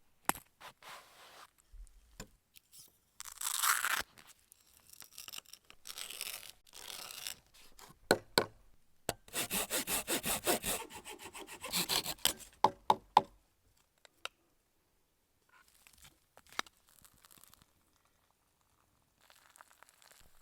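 Wood being worked with a hand tool in short rasping strokes, with a quick run of sawing strokes about halfway through and a few sharp knocks; it falls almost silent in the last few seconds.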